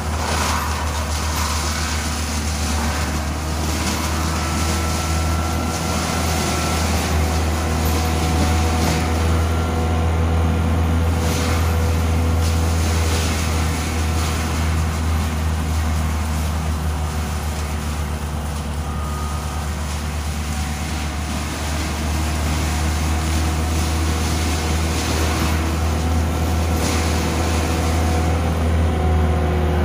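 CAT 299D3 compact track loader's diesel engine running steadily under load with its CIMAF forestry mulcher drum spinning: a deep, even drone with a hiss over it, and now and then a short burst of noise as brush goes through the mulcher.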